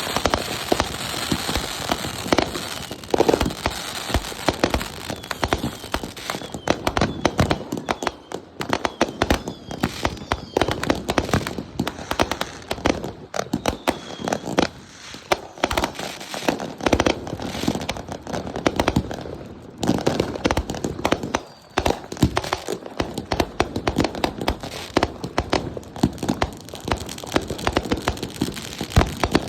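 Backyard consumer fireworks going off in rapid succession: dense crackling and popping with louder bangs scattered throughout.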